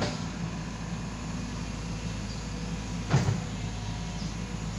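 Excavator's diesel engine running steadily, with a sharp clunk at the start and a louder metal clunk a little past three seconds in.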